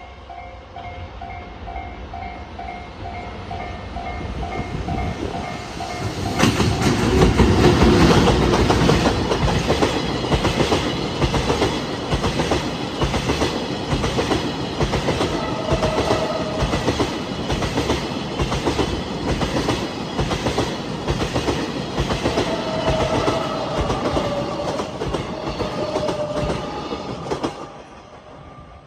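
A level-crossing warning bell rings in quick repeated pulses. About six seconds in, a freight train passes close by, and its wagon wheels clatter steadily over the rail joints in a fast run of clicks. The clatter drops away just before the end as the train clears.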